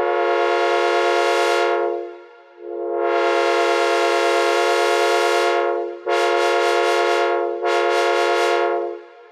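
Synthesized imitation of a CSX second-generation Nathan K5LA five-chime train horn, sounding its chord in two long blasts followed by two shorter ones back to back.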